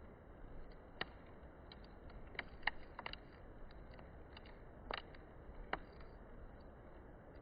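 Wood burning in a campfire, crackling with irregular sharp pops and snaps over a faint steady hiss.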